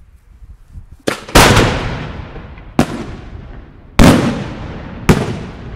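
Italian aerial firework shells bursting overhead: a run of about five loud booms, the first two close together about a second in, then roughly one a second, each rolling away in a long echo.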